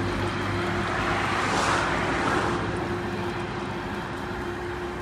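Road traffic passing close by, one vehicle swelling up and fading away about two seconds in, over a steady low hum.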